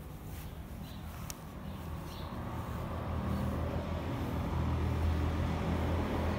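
Motor vehicle engine rumble growing gradually louder, as if a car or truck is approaching and passing close by, with a single sharp click about a second in.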